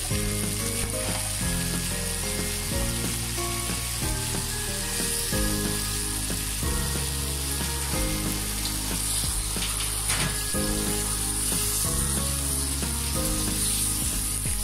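Fried snakehead fish and eggplant pieces sizzling steadily in oil and spice paste in a wok, just after a splash of water. Background music plays over it with slow, held notes, and the music cuts off near the end.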